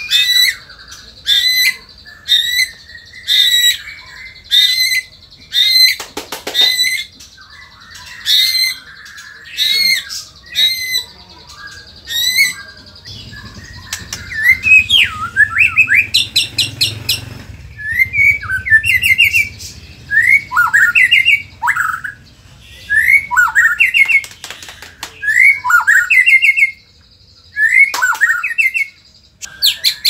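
Male white-rumped shama singing loudly and without pause: short, sharp song phrases repeated about once a second, then after about 14 seconds quick rising whistled notes in clusters of three or four. The bird is in full, excited song.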